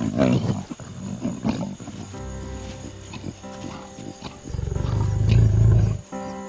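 Lion growling: a low, pulsing rumble, loudest for about a second and a half past the middle, with softer calls before it. Background music with sustained chords plays underneath.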